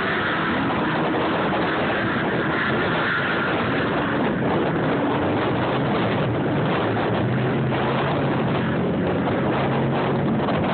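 Off-road race vehicle engines running, their pitch rising and falling several times over a dense, steady rushing noise.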